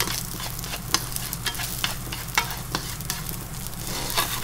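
Sliced wiener sausages sizzling in oil in a non-stick frying pan, with wooden chopsticks clicking irregularly against the pan as they stir. Near the end the pan is shaken on the hob.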